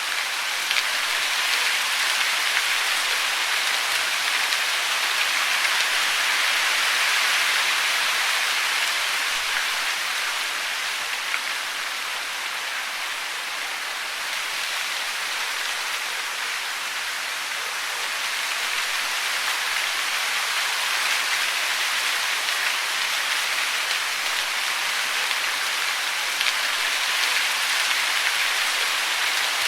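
Steady rain falling, an even hiss of many drops with no birdsong or other distinct sounds over it.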